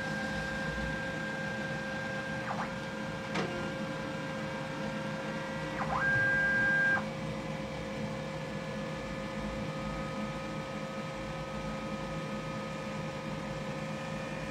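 Office printer/copier running a copy job: a steady machine hum and whine. There is a sharp click a few seconds in, and about halfway through a louder, higher tone holds for about a second.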